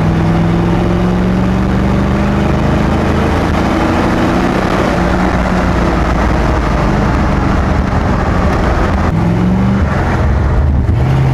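The Corvair's swapped-in 283 cu in Chevrolet small-block V8 running while the car is driven, its exhaust note climbing slowly, dropping back about nine seconds in, then climbing again.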